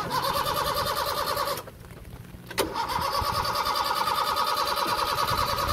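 Owner-type jeep's starter motor cranking the engine in two attempts, the first about a second and a half long, then a click and a second longer crank; the engine does not catch. The family suspects it is out of gasoline.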